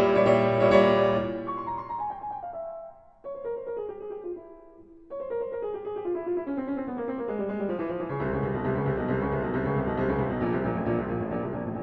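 Piano music: runs of notes stepping downward in pitch, with a short dip in loudness near the third and fifth seconds, then fuller chords with a deep bass from about eight seconds in.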